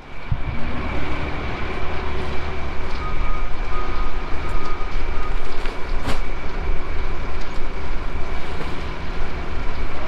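A vehicle driving, a steady low rumble of engine and road noise, with a single sharp click about six seconds in.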